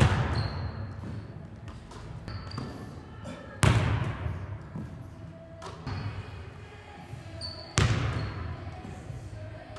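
A basketball hitting hard surfaces in a large, echoing gym: three loud hits about four seconds apart, each ringing out in the hall, with short sneaker squeaks on the hardwood between them.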